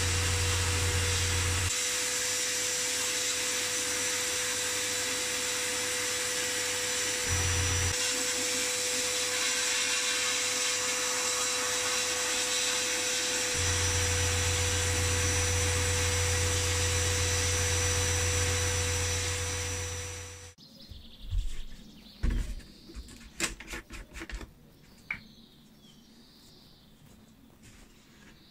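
Media blasting cabinet running: a steady loud hiss of abrasive blasted from the gun nozzle onto the steel charger case, with a low hum that drops in and out several times. The hiss cuts off suddenly about two-thirds in, followed by a few knocks and clunks of a plastic jug being handled on a workbench.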